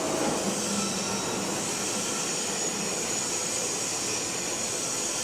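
Steady machine noise with a faint low hum and a high hiss, at an even level: machinery running in a machine shop.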